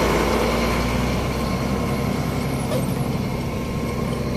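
Truck engine running steadily while driving, heard from inside the cab.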